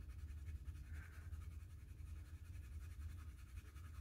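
Faint scratching of a soft-core Castle Arts colored pencil shading a small swatch on paper, over a low steady hum.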